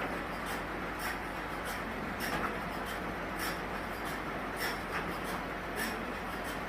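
Sawmill machinery running: a steady low hum under a noisy hiss, with sharp clicks or knocks every half second to a second.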